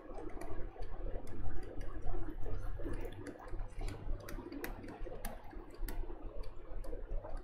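Stylus tapping and scratching on a writing tablet as words are handwritten: a quick irregular run of light clicks, over a steady low mains hum.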